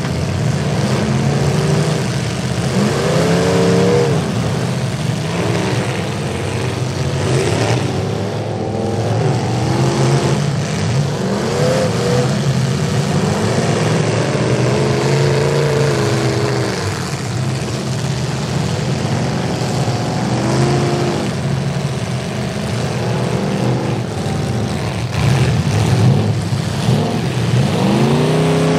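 Several demolition derby full-size pickup trucks' engines running at once, revving up and dropping back over and over as the trucks manoeuvre and ram, with a strong rising rev near the end.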